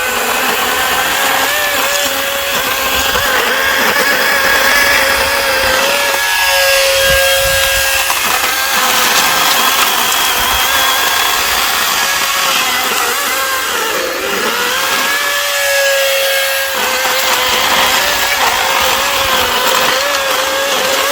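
18-inch 80-volt cordless electric chainsaw cutting through firewood, its motor tone wavering under load. Twice, about a third of the way in and again about three quarters in, it runs briefly steady and free between cuts.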